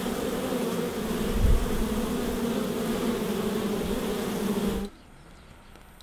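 Many honey bees buzzing together: a steady, even hum that cuts off abruptly about five seconds in.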